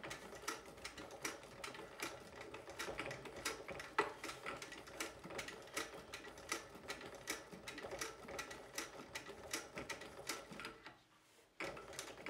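Juki LU-563 industrial walking foot sewing machine on a servo motor with a 50 mm pulley, stitching at low speed through fabric: a steady run of stitch clicks over a faint motor hum. It stops briefly near the end, then starts again.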